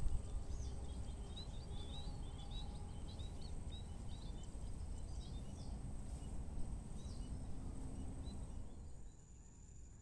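Small birds chirping many times over a low rumble, with a thin high insect drone; about nine seconds in, the rumble and chirping drop away, leaving the quieter insect drone.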